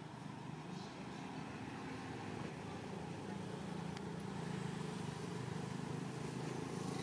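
A motor vehicle's engine running steadily as a low hum, slowly growing louder.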